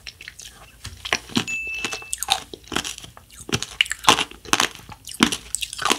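Close-miked chewing of a bite of black-cone ice cream topped with candy sprinkles: a run of sharp, irregular crunches, loudest about four and five seconds in.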